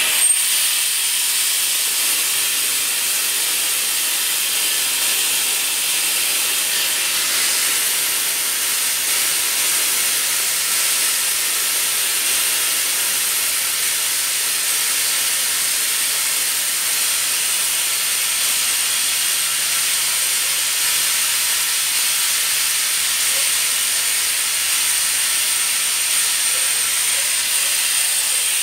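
Vacuum oil extractor hissing steadily as it sucks oil out of the engine sump through a tube in the dipstick tube; it starts abruptly. The oil it draws out is a small flushing charge of fresh oil.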